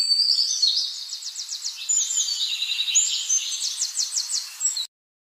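A bird singing: high, rapidly repeated chirping notes and quick trills, loud against faint background hiss, stopping abruptly near the end.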